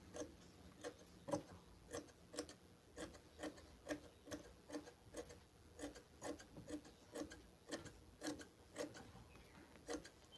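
Tailor's scissors snipping through blouse fabric, faint and rhythmic at about two snips a second, as the extra seam margin of the sleeve lining is trimmed off.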